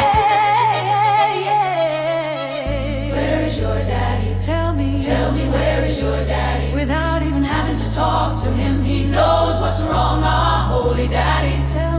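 Background music: singing voices over a deep bass line, with the bass coming in about two and a half seconds in.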